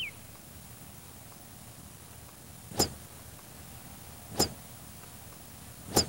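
Three sharp clicks, evenly spaced about a second and a half apart, over a faint steady hiss.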